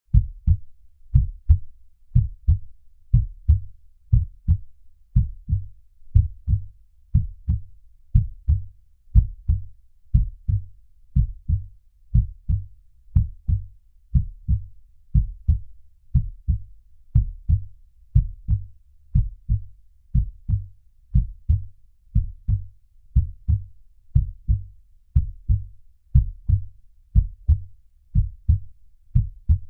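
Heartbeat at 60 beats per minute: a low double thump, lub-dub, about once a second, evenly spaced and steady.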